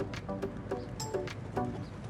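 Background music with a steady beat: short, repeated pitched notes over sharp percussive clicks.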